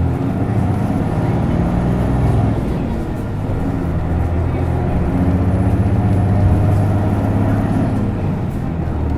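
Diesel engine of an Isuzu Erga city bus with a six-speed manual gearbox, accelerating hard under full throttle: the revs climb with a faint high whine, drop at a gear change about two and a half seconds in, then climb again and fall once more near the end.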